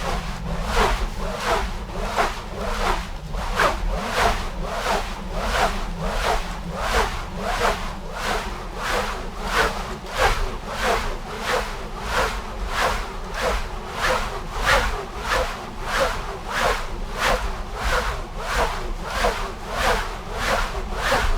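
Heavy rope swung round and round, whooshing in a steady rhythm of about one and a half swishes a second, over a constant low rumble.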